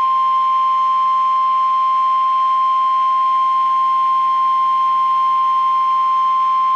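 NOAA Weather Radio 1050 Hz warning alarm tone: one loud, steady, unbroken high tone over faint radio static. It is the attention signal that a warning, here a severe thunderstorm warning, is about to be read.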